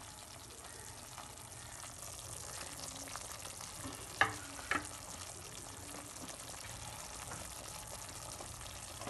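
Pan of thupka broth with kaudi and greens boiling, a steady fine bubbling crackle, with a couple of light taps about four seconds in.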